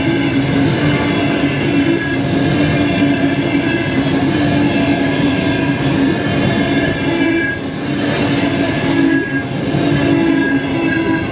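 Passenger coaches rolling past at speed: a steady, loud rumble of wheels on the rails with a humming tone over it, dipping briefly about eight seconds in.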